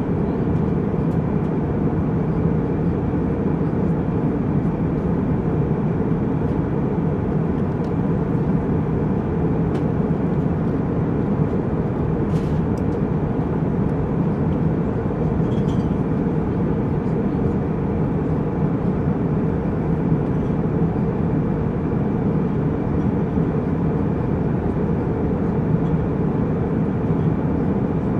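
Jetliner cabin noise in flight: a steady, even rumble of jet engines and airflow, heaviest in the low end, with a few faint clicks.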